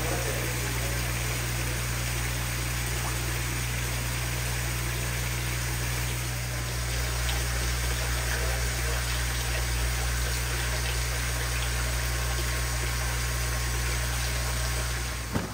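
Steady hum of water pumps with the rush of circulating water, as in fish holding tanks. It stops abruptly at the very end.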